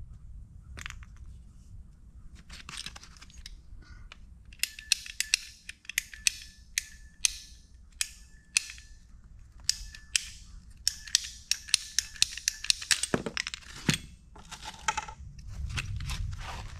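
Plastic plumbing fittings being handled and threaded together: a long run of sharp clicks and scrapes, a few a second, starting about four seconds in.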